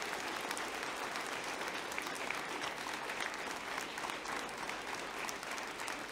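An audience applauding: many hands clapping together in a steady, dense patter.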